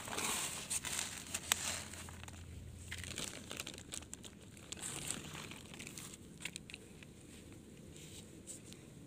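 Potting mix with perlite being worked by hand into a plastic nursery pot: crumbly rustling and crackling with scattered light clicks, loudest in the first couple of seconds and softer after.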